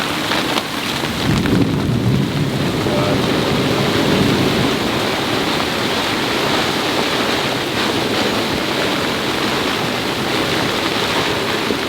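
Loud, steady rush of squall wind and heavy rain, with a deeper rumble swelling for a couple of seconds about a second in.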